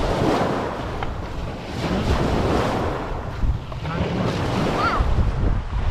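Small waves breaking and washing up over a pebble beach, surging in one after another, with wind rumbling on the microphone.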